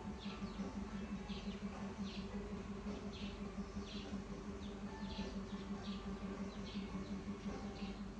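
A small bird chirping over and over, a short high chirp roughly every second, over a steady low hum.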